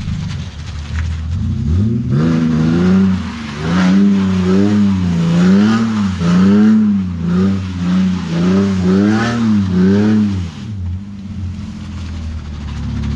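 Car engine revved hard during donuts, its pitch rising and falling about eight times in quick succession. It drops back to idle near the end.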